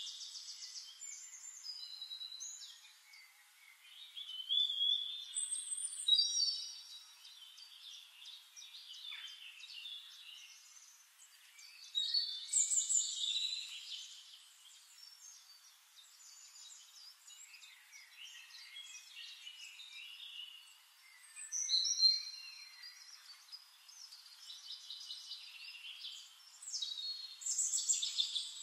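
Several songbirds singing and calling at once, high-pitched chirps, whistles and trills overlapping, with louder bursts of song every several seconds.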